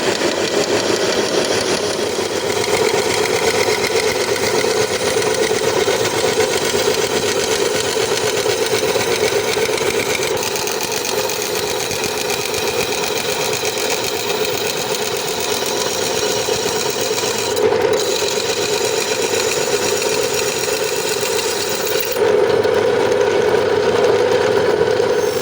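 A motor-driven workshop machine running steadily, with a dense buzzing rattle; the sound changes abruptly a few times where the footage is cut.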